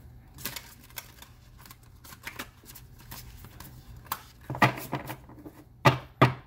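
A deck of oracle cards being shuffled by hand: a run of quick, light card slaps and riffles, with a few sharper knocks of the deck in the last two seconds.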